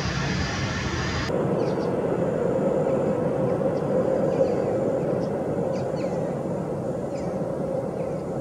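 Steady jet airliner engine noise heard from a distance. The sound changes abruptly about a second in, and faint bird chirps come through over it.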